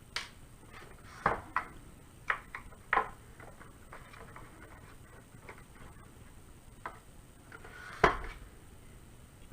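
Scattered sharp clicks and taps of a small Phillips screwdriver and screws as Phillips head screws are worked out of a 3D printer's plastic shell, several in the first three seconds and the loudest about eight seconds in.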